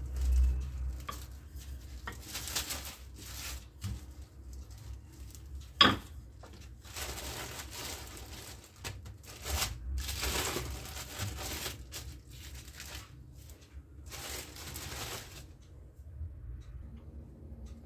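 A rolling pin rolls briefly over sesame dough, then plastic film crinkles and rustles in several bursts as the thin dough sheet and the plastic are handled. A single sharp knock comes about six seconds in.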